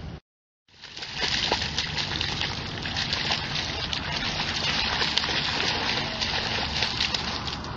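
A young Cimarrón Uruguayo dog running and splashing through shallow lake water at the shore. It starts about a second in, after a brief silent gap, and keeps up as a dense, steady splashing.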